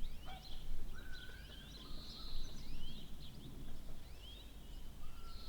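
Birds chirping in the background: many short rising chirps and a couple of longer held whistles, over a steady low hum of background noise.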